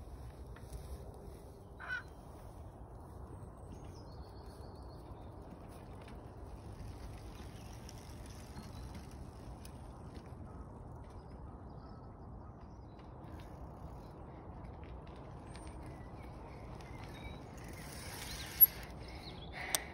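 Outdoor ambience of a low steady rumble with scattered distant bird calls. Near the end a bicycle rides up close with a brief rustle and one sharp click.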